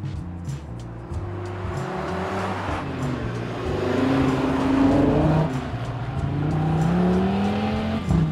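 Audi RS3's turbocharged 2.5-litre five-cylinder engine accelerating hard as the car drives past, loudest as it comes close, the revs climbing over the last few seconds and then breaking off near the end.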